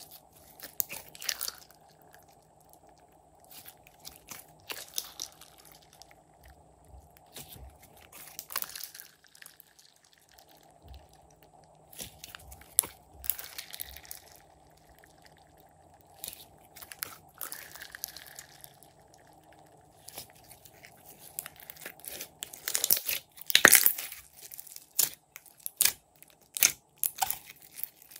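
Irregular crackling, squishing clicks of slime being worked by hand, in scattered bursts, loudest in a dense cluster a few seconds before the end.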